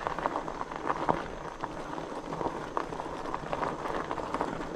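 Fat-bike tyres rolling over a loose gravel road: a dense run of small irregular crunches and ticks, with the bike rattling over the stones.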